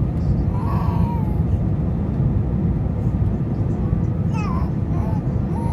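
Steady low rumble of airliner cabin noise, with a few short high-pitched cries from a small child over it.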